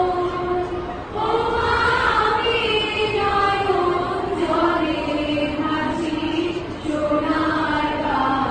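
A large group of girls' voices singing together in unison, a slow song in long held phrases with a short break about a second in and another near the end.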